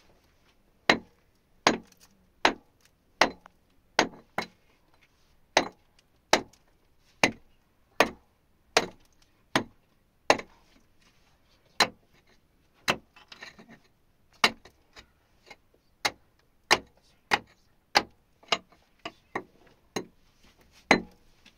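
A hand tool striking a hard surface over and over, about one sharp blow every three-quarters of a second, with a quicker run of softer blows near the end.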